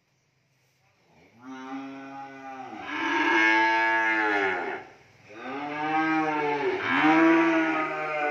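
Young beef cattle in a pen mooing: about a second in, one long call begins, and a second long call follows right after it.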